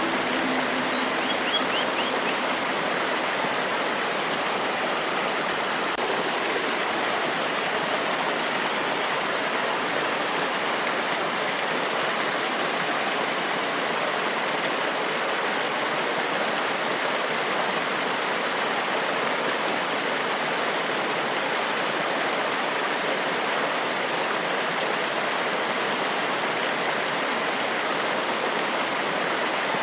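Forest waterfall: water rushing and splashing over rocks in a steady, unbroken wash of noise.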